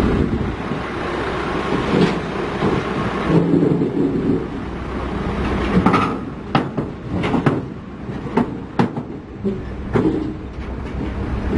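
Heavy diesel machinery running, joined from about halfway by an irregular run of sharp metal clanks and knocks, like the steel track plates of a crawler bulldozer.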